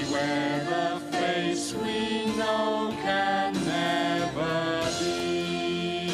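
Music: a melody of sliding, held notes, sung or played, over sustained instrumental backing.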